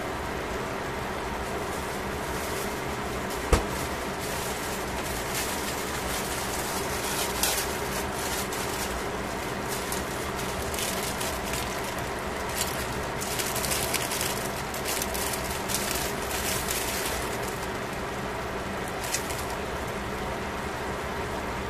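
Pork and vegetables simmering in a stainless pot, with irregular spells of fine crackling and sizzling over a steady hum. A single sharp click comes about three and a half seconds in.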